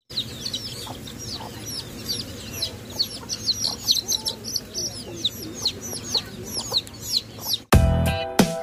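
A brood of Muscovy ducklings peeping: a dense stream of short, high, downward-sliding chirps, several a second. Near the end, loud music cuts in.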